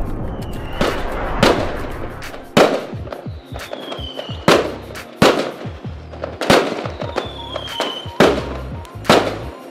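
Aerial fireworks bursting: a string of sharp bangs about every one to two seconds, with crackling between them and a few faint falling whistles.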